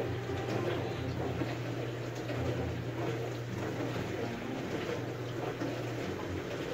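Dishwasher running, with a steady low hum and water sloshing.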